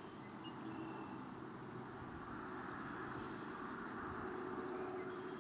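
Steady outdoor background noise, an even hiss and hum, with faint short high chirps scattered through it.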